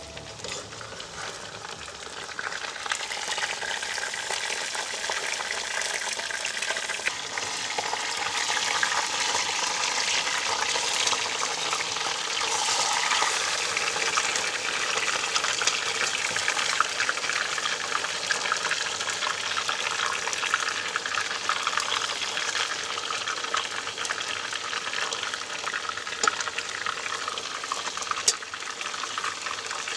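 Cut potatoes frying in hot oil in a pan, a steady sizzle thick with small crackles, building up over the first few seconds and then holding.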